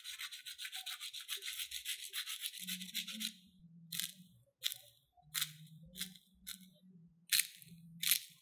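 Crispy crust of fried potato-and-cornstarch sticks crackling under the fingers: a fast, continuous crackle for about the first three and a half seconds, then separate short crackles every half second or so as a stick is squeezed and pulled apart.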